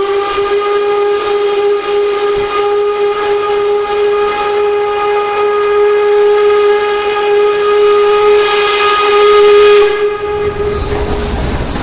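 Steam whistle of LMS Royal Scot class locomotive 46100, sounded in one long continuous blast at a steady pitch as a warning at a level crossing whose lights have failed. A burst of steam hiss joins it shortly before the end. As the whistle stops near the end, the locomotive's low rumble on the rails takes over.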